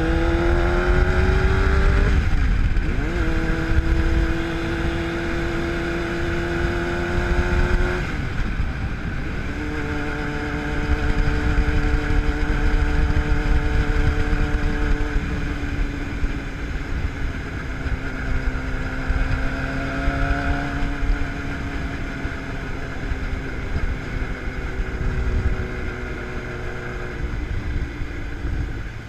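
Yamaha sport bike's engine pulling hard and rising in pitch, then dropping as it shifts up about two and a half and eight seconds in, before settling to a steady cruise. Wind rushes over the microphone throughout.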